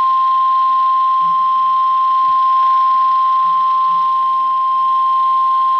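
NOAA Weather Radio warning alarm tone: a single loud, steady tone held without a break over faint radio hiss, the signal that a warning message is about to be read.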